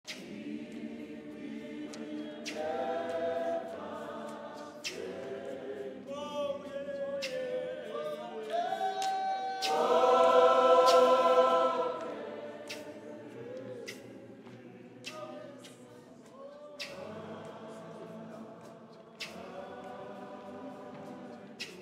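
Zion church choir of women's voices with a male leader singing a gospel song in harmony, swelling to its loudest about ten seconds in, with sharp knocks now and then.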